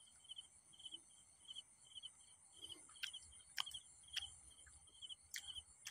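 Faint insect chirping: short pulsed chirps repeating about two to three times a second over a steady high-pitched buzz, with a few soft clicks scattered through.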